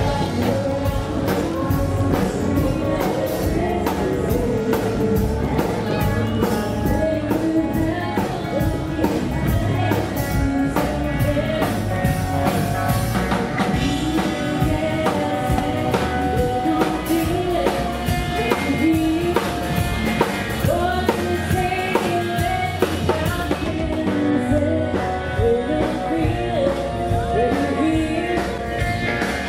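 A live band playing rock-style music: a singer over a steady drum-kit beat and guitar.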